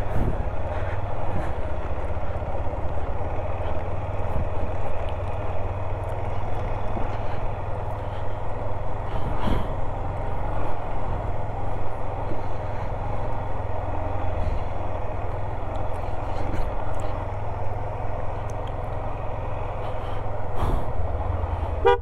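Motorcycle engine running steadily as the bike is ridden, a constant low rumble with a few faint knocks from the rough track.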